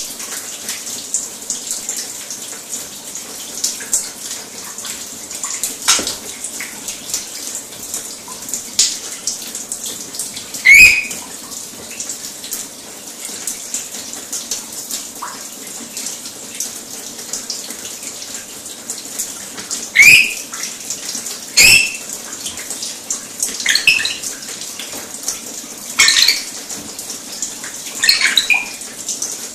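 Shower spray hissing steadily over a bird perch, with a rainbow lorikeet giving short, loud screeches several times, mostly in the second half.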